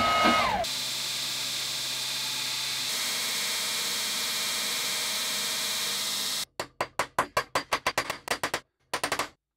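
Belt grinder running with a steady hiss as a small steel shaft is held to the abrasive belt to grind a flat on it. After about six and a half seconds it stops, and a quick run of small clicks follows, about seven a second, as the shaft is fitted into a small black rotor.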